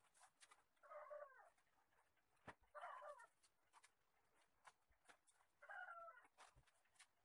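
Faint animal calls in the background: three short, wavering calls, about two to three seconds apart, over light scattered clicks.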